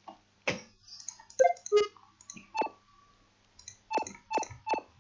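A series of short, sharp clicks from the chess board software as pieces are moved, some with a brief ringing tone, ending in a quick run of three.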